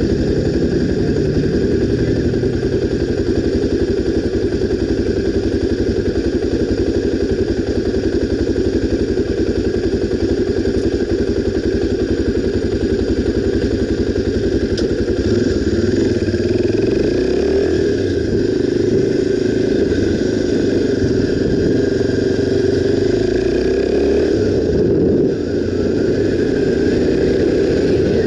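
Honda XR 250 Tornado's single-cylinder four-stroke engine running while the motorcycle is ridden. Its note holds steady at first, then rises and falls in the second half as the speed changes.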